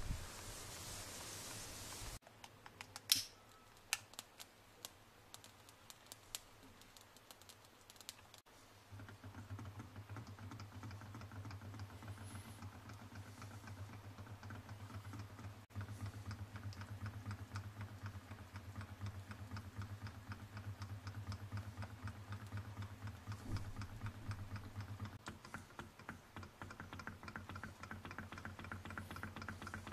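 Small model Ringbom Stirling engine running, its mechanism making a rapid, even clicking that sets in several seconds in and keeps on steadily.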